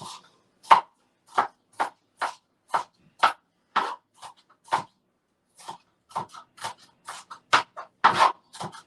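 Knife chopping an onion on a cutting board: separate chops about two a second, then after a short pause quicker and more uneven chopping.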